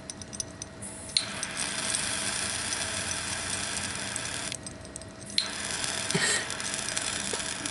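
A butane torch clicks alight and hisses for about three seconds. It cuts off, then is clicked on again a second later and keeps hissing, the flame held on damp fire cord that is slow to catch. A few light clicks and rattles come before it.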